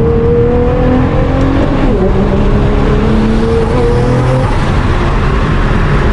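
Nissan R35 GT-R's twin-turbo 3.8-litre V6 pulling under throttle. The pitch climbs, drops about two seconds in at a gear change, climbs again, then eases off about four and a half seconds in.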